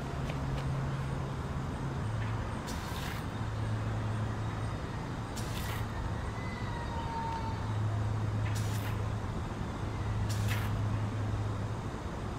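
Aerosol can of insecticide spray fired through its straw in four short hissing bursts, two to three seconds apart, over a steady low hum.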